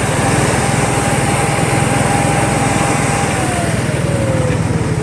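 A small engine running steadily, with a thin whine that holds one pitch and then falls over the last second and a half.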